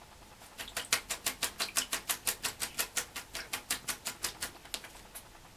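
Red-crowned parakeet (kakariki) bathing in a washbasin, flapping its wet wings in a quick, even patter of about seven beats a second that spatters water. The beats start just under a second in and stop about five seconds in.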